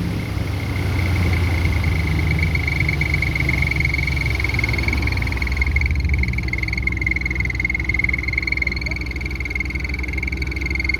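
Yamaha 40 outboard motor running steadily under way, with a steady high-pitched whistle ringing over the low engine drone. The owner cannot find the cause of the whistle: a teardown found the engine's internals like new.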